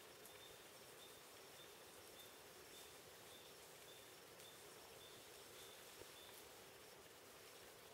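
Faint rainforest ambience: a thin, high chirp repeating steadily about twice a second over a low hiss, with one soft tick about six seconds in.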